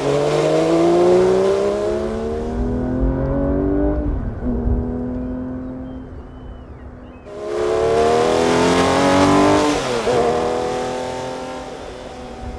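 Porsche 911 S/T's 4.0-litre flat-six accelerating hard, the engine note climbing through the revs, then dropping back to a steady low note for a few seconds. About seven seconds in it revs up again, climbing until a sharp drop near ten seconds, and then eases off.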